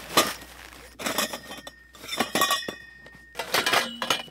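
Metal frame poles and pipe connector fittings of a portable garage kit clinking and knocking together as they are pulled from the box. Several groups of clanks, some followed by a brief metallic ring.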